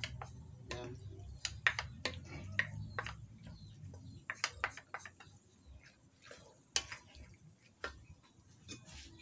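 Wooden spatula and spoon clicking and knocking against a metal wok and a small bowl while squid ink is scraped in and stirred through the squid, irregular knocks thickest in the first half, over a low steady hum.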